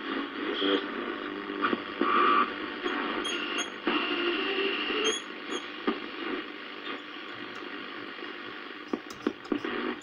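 An RCA portable tube radio being tuned between stations: steady static hiss with whistling tones that come and go, and a few crackles near the end.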